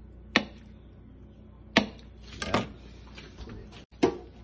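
Kitchen knife cutting through soft tofu and knocking on a plastic cutting board: about five separate sharp knocks, two of them close together in the middle.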